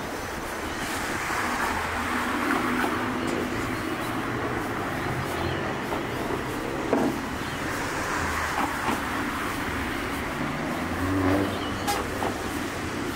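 Road traffic passing steadily on the bridge roadway beside the footway, cars and a city bus going by with a low engine hum that swells and fades, and a couple of sharp clicks.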